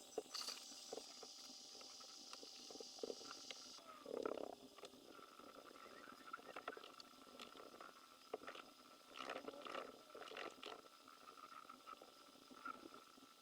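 Faint, thin steady whine of the watch winder's small electric rotor motors. The pitch shifts about four to five seconds in, with scattered light clicks and a soft knock about four seconds in.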